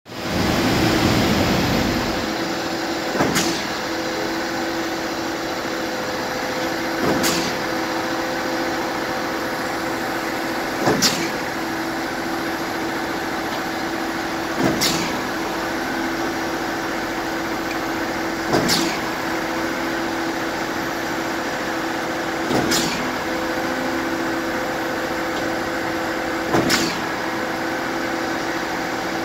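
Small tugboat's diesel engine running with a steady drone. A short sharp knock repeats about every four seconds, and there is a louder low rumble in the first couple of seconds.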